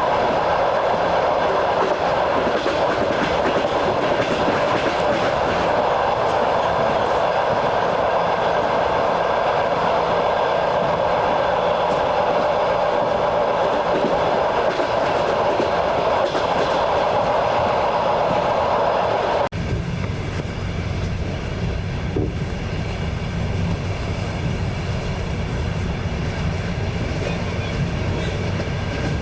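Train running along the track, with the steady rumble and clatter of its wheels on the rails. About two-thirds of the way through the sound changes abruptly to a lower, deeper rumble.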